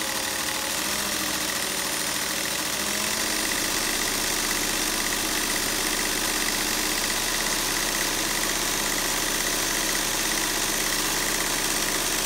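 Singer 600 Touch & Sew sewing machine running steadily at speed, sewing a single-thread chain stitch through fabric. Near the end it runs on past the fabric's edge, chaining off.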